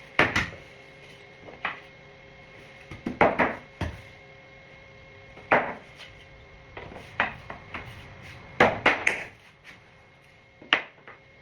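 Flooring planks being set down and pushed together by hand: a series of irregular wooden clacks and taps, some in quick clusters of two or three.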